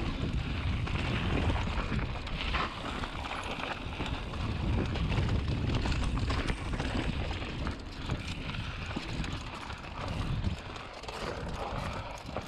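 Mountain bike riding fast down a dirt trail: wind buffeting the microphone, tyres rolling over dirt, and the bike rattling and knocking over bumps.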